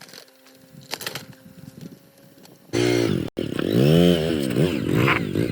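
Small engine revving up and down again and again, its pitch rising and falling in quick swoops, starting suddenly a little under three seconds in after some quieter clattering.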